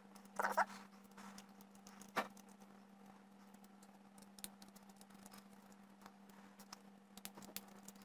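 Faint small clicks and scratches of a laptop hard drive and a screwdriver being handled over a steady low hum, with one sharper click about two seconds in. Near the end, quick light ticks as a screwdriver bit engages the drive's side mounting screws.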